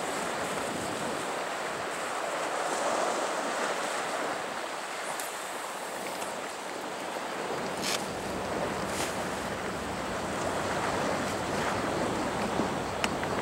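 Sea water washing against a rocky shoreline, a steady hiss that swells and eases. A few sharp ticks come in the second half, and a faint low hum joins about halfway.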